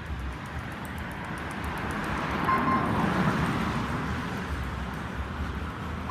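Road traffic noise with a vehicle going by, swelling about two and a half seconds in and then fading. A short high electronic beep sounds as it swells, and again at the very end.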